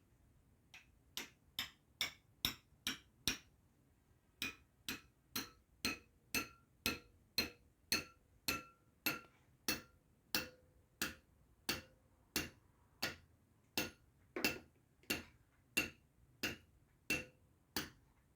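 Hammer blows struck at a steady pace of about two a second, each with a short metallic ring, with a brief pause about four seconds in.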